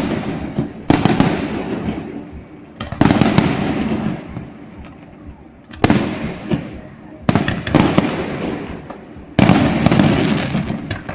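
Fireworks display: aerial shells bursting one after another, about seven loud bangs spaced one to three seconds apart, each trailing off over a second or two.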